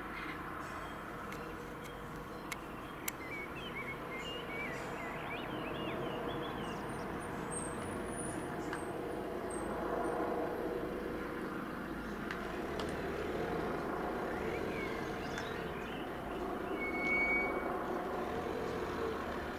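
Eurocopter EC135 police helicopter circling at a distance: a steady drone from its rotors and engines. Birds chirp briefly a few seconds in.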